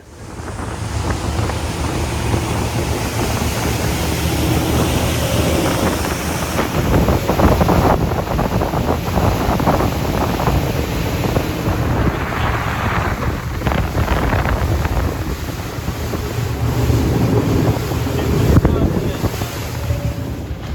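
Motorboat running, its engine a steady low drone under heavy wind buffeting on the microphone and the rush of water.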